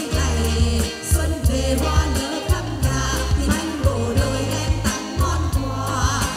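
A woman singing a Vietnamese song into a microphone over amplified backing music with a steady bass beat.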